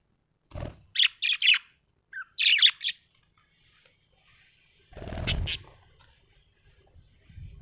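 Budgerigar chirping in two quick clusters of short, high chirps, the first about a second in and the second near three seconds in. A low rustling thump comes about five seconds in.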